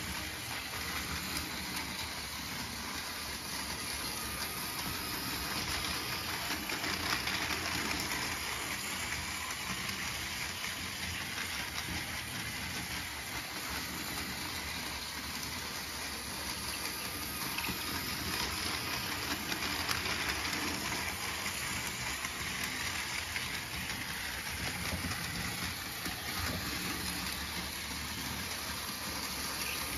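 Battery-powered Plarail Thomas toy engine pulling its train around plastic track: a steady whir of its small electric motor with the wheels running on the plastic rails.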